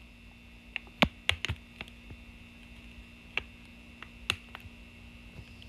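A chip bag handled in the hand, giving a few scattered light clicks and crackles, the loudest about a second in, over a faint steady hum.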